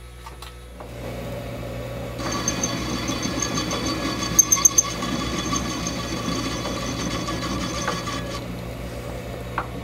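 Atlas 618 metal lathe starting up and running with a steady hum; from about two seconds in, a carbide tool cuts a taper on the spinning rod, a grinding, hissing cut with a steady high whine and a few sharp ticks, which stops about eight seconds in while the lathe keeps running.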